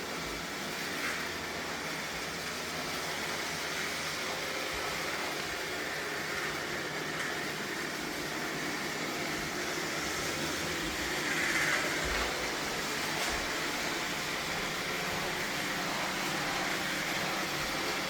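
Roborock S7 robot vacuum running steadily as it cleans, its suction fan and brushes giving an even whirring hiss, with a few soft low bumps around the middle.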